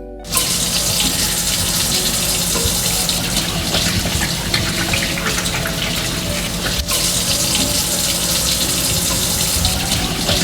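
Water running steadily from a tap, with one brief break about seven seconds in.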